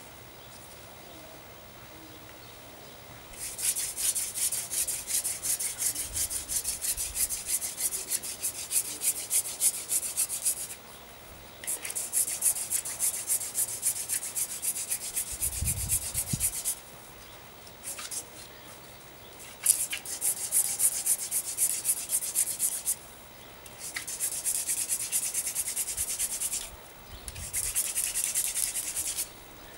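Hand drill friction fire: a dried cattail-stalk spindle spun back and forth between the palms in a wooden fireboard's notched socket, making a rapid scratchy rubbing. It comes in five bouts, starting about three seconds in, with short pauses between them, as the spindle grinds hot wood dust toward an ember.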